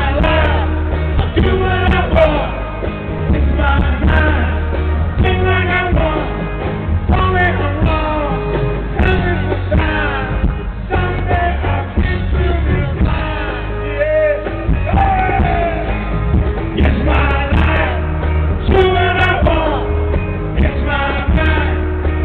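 Live rock band playing, with a strong, steady bass underneath.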